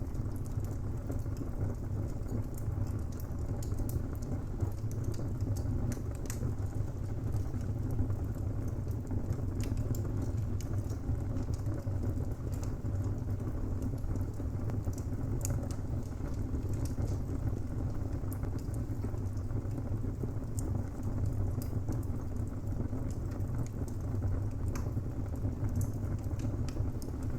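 Wood fire burning: a steady low rumble under frequent small, irregular crackles and pops of burning timber.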